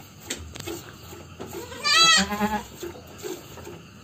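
Etawa dairy goat bleating once, about two seconds in: a single loud, wavering cry lasting under a second.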